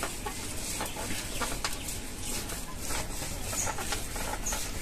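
Fibrous ripe palm fruit (taal) being rubbed and pressed by hand against a woven bamboo basket to work the pulp out: irregular rubbing and scraping strokes.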